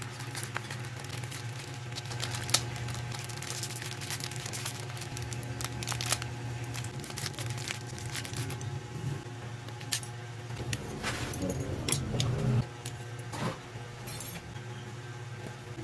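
Small clicks, rustles and light metallic clinks as a new 6302 ball bearing is taken out of its box and handled in gloved hands, over a steady low hum.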